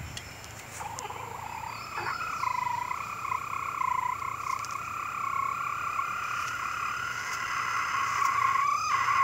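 A rooster giving one unusually long, drawn-out crow. It dips in pitch early, then holds a single steady pitch for several seconds and breaks off near the end.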